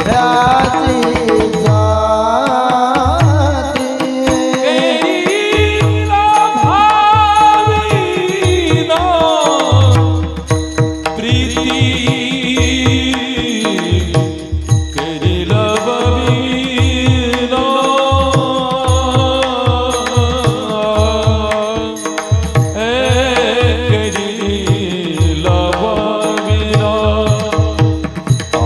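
Devotional singing of a Marathi kirtan melody (chal), a voice gliding through long held and ornamented notes over a steady held accompaniment, with regular hand-drum strokes keeping the beat.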